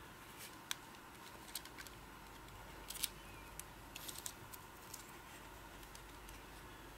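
Small sharp plastic clicks and ticks from handling a Sony camera and pinching the snap-on lens cap off its kit lens, scattered and irregular, with the loudest cluster about three seconds in.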